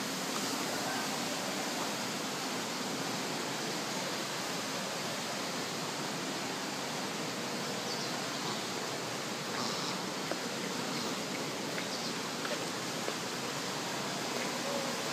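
A steady, even rushing noise, with a few faint short high chirps about eight to twelve seconds in.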